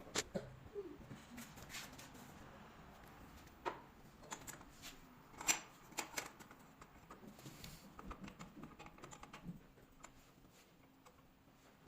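Scattered light clicks and knocks from handling a wooden crate, with one sharper knock about five and a half seconds in.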